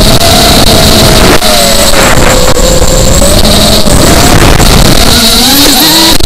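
FPV drone's electric motors and propellers whining, heard through the onboard camera's microphone, loud with rushing wind; the pitch sags and swells with the throttle and climbs near the end.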